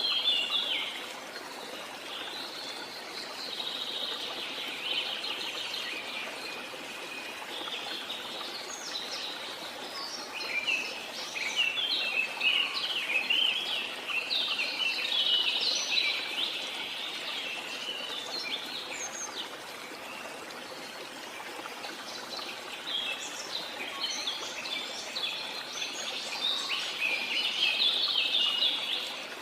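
Birds chirping in quick bursts of short high calls, busiest in the middle and again near the end, over a steady rush of water from a jungle waterfall.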